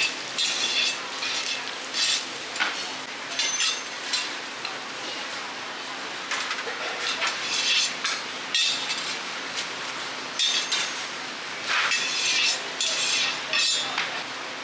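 Scallion pancake frying in oil in a round pan with a steady sizzle, while a metal spatula scrapes and knocks against the pan in repeated short strokes.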